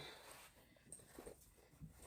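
Near silence, with a faint sound fading out at the very start and a few faint brief noises about a second in.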